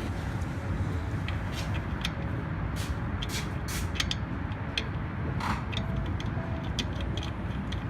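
Irregular sharp metallic clicks and clinks of hand tools on bolts as parts are put back and tightened, over a steady low rumble.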